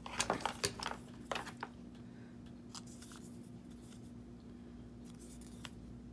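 Paper crafting sounds: a paper tag and small scissors being handled, with a quick run of crisp rustles and snipping clicks in the first second and a half, then only a few faint ticks.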